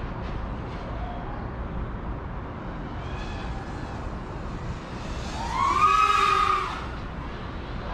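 FPV racing drone's motors and propellers whining under a burst of throttle, the whine rising and then falling in pitch for about a second and a half near the end, over a steady rush of air.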